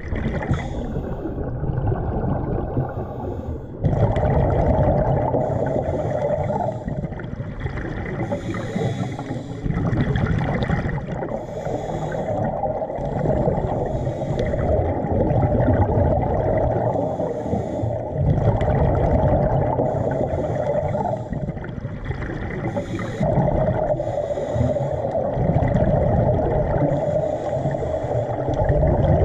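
Muffled underwater sound through a camera housing: continuous low water noise with a hissing, bubbling burst every few seconds, the breathing and exhaled bubbles of a scuba diver.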